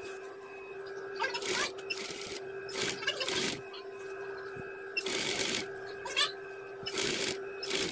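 Industrial flatbed sewing machine stitching in short bursts, about eight runs at uneven intervals, over a steady motor hum, as it sews fabric around a cord with a single-sided piping foot.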